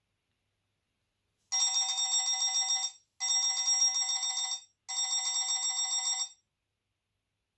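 A ringtone playing from an HTC Advantage X7500 smartphone's speaker: an electronic telephone-bell ring sounding three times, each ring about a second and a half long with short gaps between.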